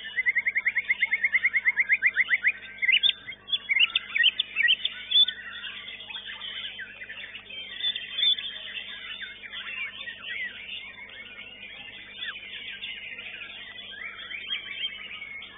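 White-rumped shama singing: a fast run of repeated chirps, about eight a second, for the first two and a half seconds. Loud varied whistles and chirps follow, then a softer, busy chatter of birdsong.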